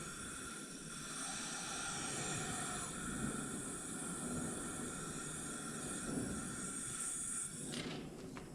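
Compressed air hissing steadily from an air-driven blasting or coating gun. It cuts off suddenly near the end, followed by a few sharp clicks.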